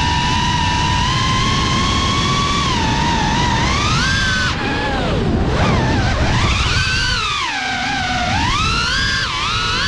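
FPV quadcopter's brushless motors and propellers whining, heard from the camera on board with rushing wind noise underneath. The pitch holds steady for the first few seconds, then swings sharply up and down as the throttle is worked.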